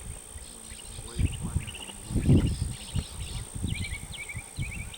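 Insects chirping in short repeated pulses over a steady high tone, with irregular low rumbles, the loudest a little past two seconds in.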